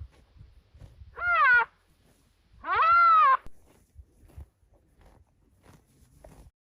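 A cat meowing twice, two drawn-out calls that rise and then fall in pitch, the second one longer, with soft knocks and rustling afterwards.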